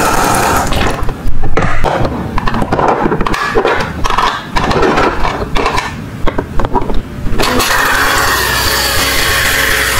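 Water from a toy kitchen sink's faucet running over plastic toy vegetables, then plastic clicks and clatter as the pieces are handled and set on a plastic plate. About seven and a half seconds in, the faucet runs steadily again, filling a small plastic pot.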